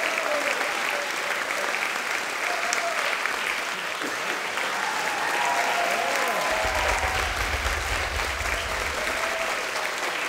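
Theatre audience applauding steadily, with a few voices calling out over the clapping.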